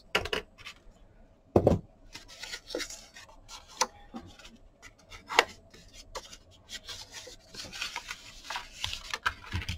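Kraft cardboard pieces being handled and slid over a cutting mat: scattered light taps, rustles and rubbing, with one louder knock a little under two seconds in.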